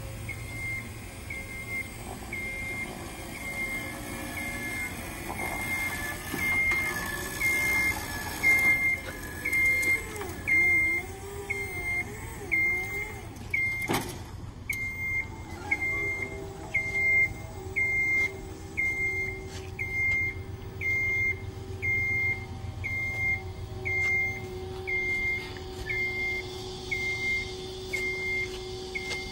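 Genie Runabout GR-20 vertical mast lift with its motion alarm beeping evenly, a little more than once a second, while the lift moves. About halfway through, a steady hum from its electric hydraulic pump joins in as the platform is raised up the mast.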